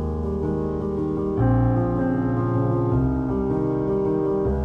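Background piano music, sustained chords changing every second or so, with a fuller chord coming in about a second and a half in.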